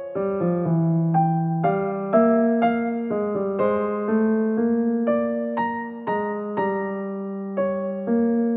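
Background music: a gentle piano or electric piano melody, one note at a time at about two notes a second.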